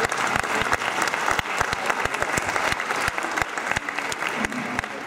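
Audience applauding, a dense clapping with sharp individual clicks standing out through it.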